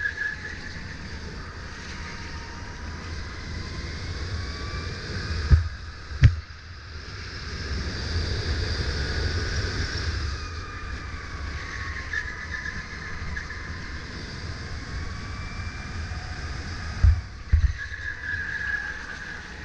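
Sodi RSX2 electric kart's motor whining on board, its pitch rising and falling with speed through the corners, over a steady low rumble. Two pairs of sharp knocks, the loudest sounds, come about six seconds in and again near the end.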